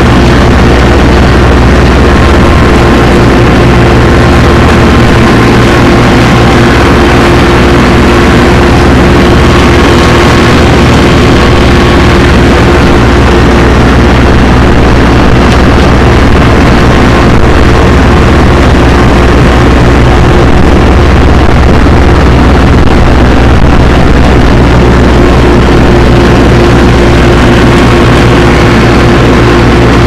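Compact tractor engine running steadily at working speed while mowing, loud and close from the driver's seat.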